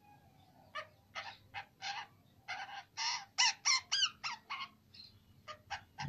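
Juvenile plum-headed parakeet squawking: a rapid series of about fifteen short, harsh calls, loudest in the middle, given by the bird as it is held and has paste dabbed on its injury.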